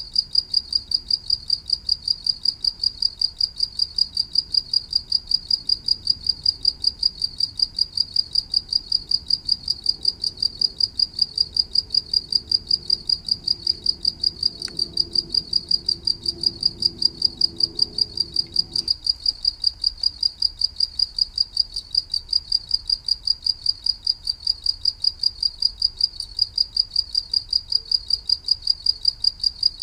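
A cricket chirping, a high-pitched chirp repeated evenly about four times a second.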